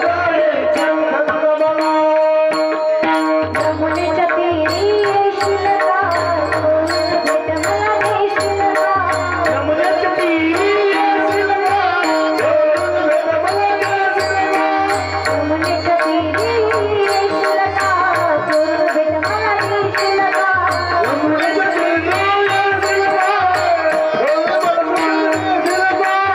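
Varkari kirtan music: a woman's voice singing a devotional Marathi abhang over steady held harmonium-like tones, with mridang drumming and evenly spaced hand-cymbal strikes keeping the beat.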